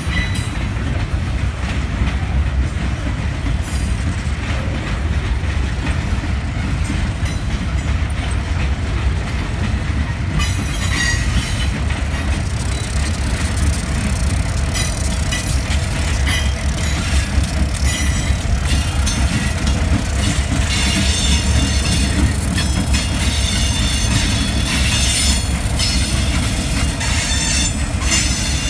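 Freight train rolling slowly past: the steady low rumble of the cars and diesel locomotives, with wheels clicking over the rails. From about a third of the way in, wheel squeal and clatter start and grow louder.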